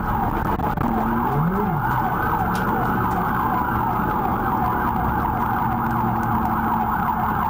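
Police car siren yelping in fast, repeated up-and-down sweeps, heard from inside the pursuing patrol car.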